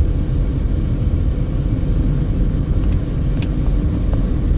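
Steady low rumble of a passenger car cruising on the highway: engine, tyre and road noise.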